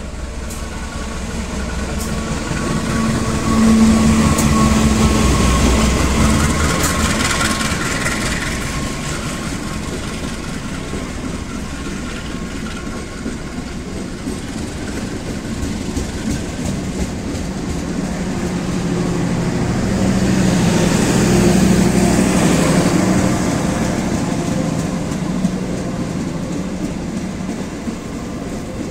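CC 201 (GE U18C) diesel-electric locomotive passing close with its engine running, loudest about four seconds in, followed by a long train of passenger coaches rolling past on the rails. The noise swells again around twenty seconds in, then eases.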